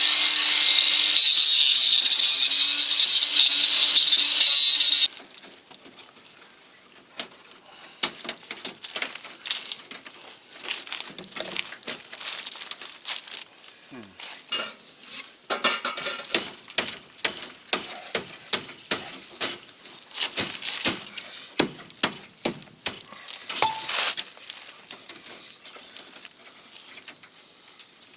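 A loud, steady, hissing noise with a low hum, cutting off suddenly about five seconds in. It is followed by a long run of irregular sharp metallic clicks and snips, like tin snips working through thin sheet metal.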